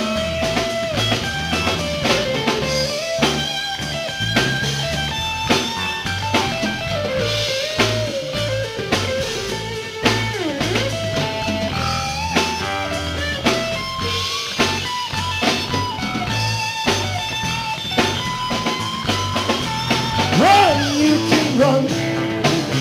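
Live blues-rock band: a lead electric guitar solos with bent notes over a drum kit and bass.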